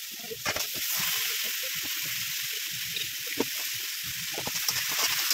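Chopped vegetables sizzling steadily in hot oil in a steel wok, with scattered clinks and scrapes of a metal lid and spoon.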